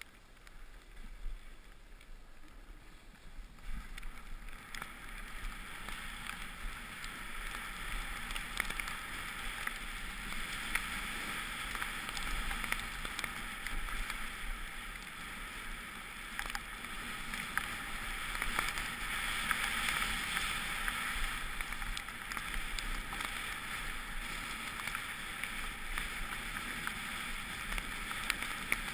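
Snow hissing and scraping under the camera-wearer's edges while sliding down a snowy slope, building up a few seconds in and swelling and easing with the turns.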